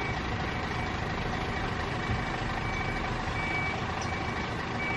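Loaded dump truck's reverse alarm beeping: short, evenly spaced high beeps about every 0.7 seconds, faint at first and clearer from about halfway, over the truck's steady engine running.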